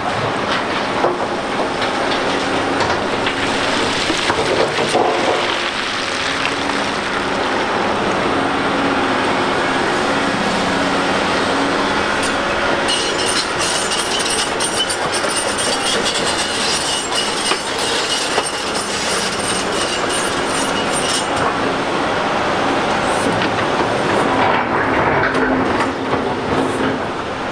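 Volvo EC750E L crawler excavator and A60H articulated dump truck at work: heavy diesel engines running under steady metallic clanking and squealing, which turns harsher and higher-pitched for several seconds in the middle.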